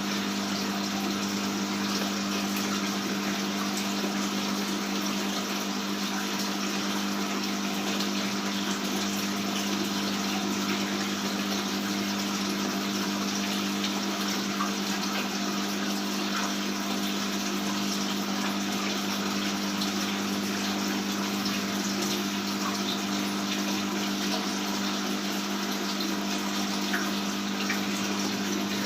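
Aquarium water pump running with water flowing and splashing: a steady hum under an even rush of water that does not change.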